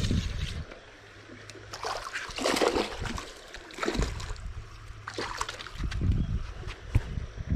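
Creek water splashing and sloshing in several short bursts, with intermittent low rumbles and a sharp click near the end.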